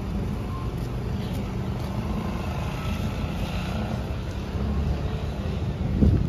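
Motor traffic running close by, steady throughout, with a short loud thump about six seconds in.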